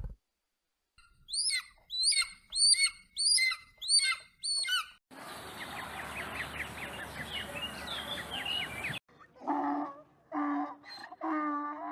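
Bird calls: a series of about eight short, sweeping chirps, then a few seconds of birdsong over a steady hiss. Near the end come several short, lower-pitched animal calls.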